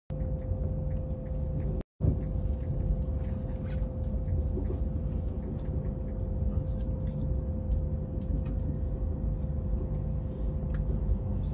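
Passenger train running, heard from inside the carriage: a steady low rumble with a constant hum and occasional light clicks. The sound drops out briefly about two seconds in.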